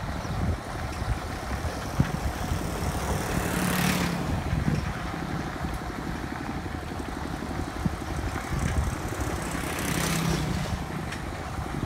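Engine of a moving vehicle running steadily on a dirt road, with rattling. Two louder rushes of noise come about four and ten seconds in.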